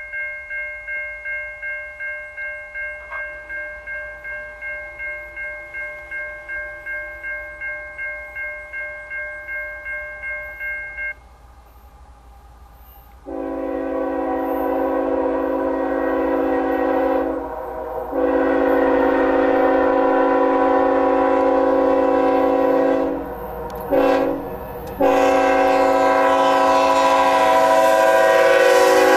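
A railroad grade-crossing bell rings steadily, a little over twice a second, and stops about 11 seconds in. Then the horn of GE ES44AC locomotive NS #8103 sounds the grade-crossing signal: two long blasts, a short one, and a long one that carries on as the engine passes close by.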